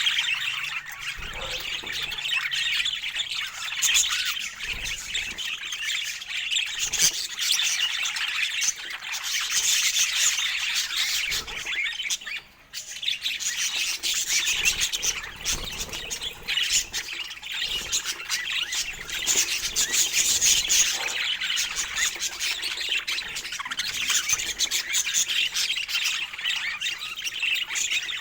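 Budgerigars chattering with dense, continuous chirps and squawks that break off briefly about halfway.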